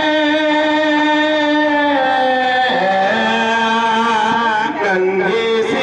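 Male voice singing a naat, drawing out a long melismatic note with no clear words; the pitch steps down about two and three seconds in and rises again near the end.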